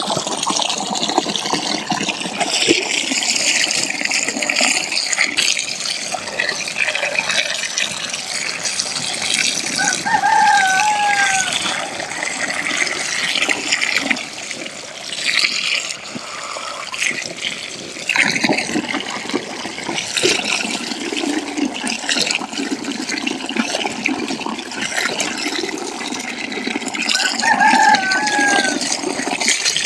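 A stream of water pouring into a full plastic basin and splashing, with hands swishing and rinsing leafy greens in it. A chicken calls briefly twice in the background, about ten seconds in and near the end.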